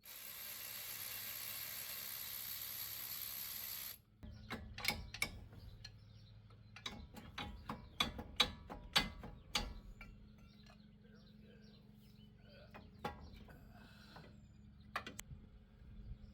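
A steady hiss for about four seconds that cuts off suddenly, then the scattered sharp clicks and knocks of hand tools on the brake assembly, including the clicking of a ratchet.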